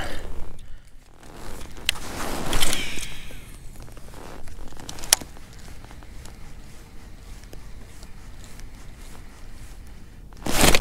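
Baitcasting reel retrieving a crankbait, its spool and gears giving a zipper-like whir. It swells louder about two seconds in, then runs faint and steady, with one sharp click about five seconds in, and turns loud again just before the end.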